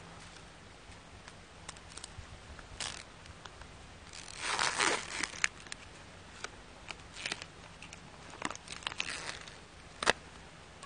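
Plastic food packaging crinkling and tearing in the hands as the lid is peeled off a small plastic container, with a longer burst of crackling about four seconds in and scattered crinkles and clicks after it.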